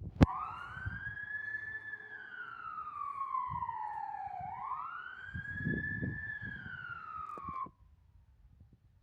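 Fire engine's siren wailing, sweeping slowly up and down twice after a sharp click as it starts, over a low rumble. Near the end it cuts off and its pitch slides away.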